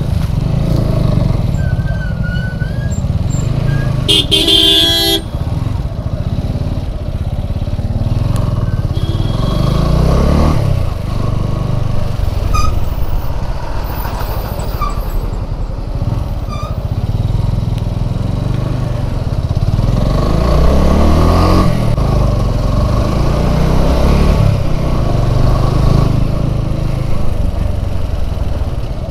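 TVS Apache RTR 200 single-cylinder motorcycle engine running in slow traffic, its pitch rising as it picks up speed about ten seconds in and again about twenty seconds in. A vehicle horn sounds once for about a second, about four seconds in.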